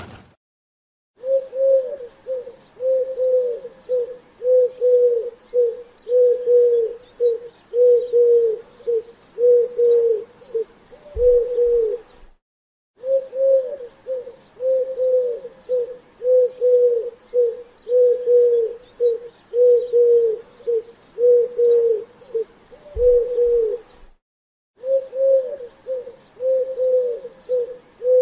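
Pigeon cooing: a quick, steady run of coos, about two a second, each rising and falling in pitch. The run comes in three stretches broken by short silences, over a faint high hiss.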